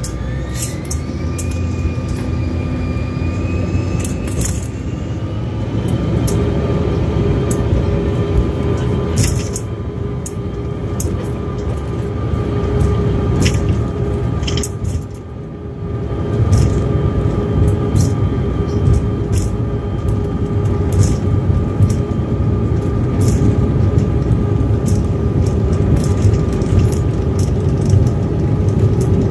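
Jet airliner's engines heard from inside the cabin: a low rumble with steady whining tones, one whine rising over the first few seconds. About halfway through, after a brief dip, the engines come up louder and the rumble builds as the plane starts its takeoff roll, with occasional sharp cabin rattles.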